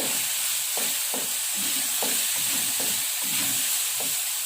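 Spice paste cooking in a pan with a steady sizzling hiss while it is stirred, the spatula knocking against the pan several times.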